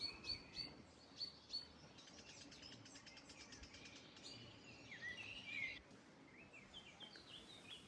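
Songbirds singing, faint: a run of short high chirps, then a fast trill, then warbling phrases that slide up and down, and a few more chirps near the end.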